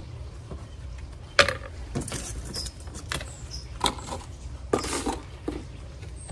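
Repotting handling noise: gloved hands working among soil, gravel and pots give a few sharp clicks and knocks, with a short scraping rustle about five seconds in.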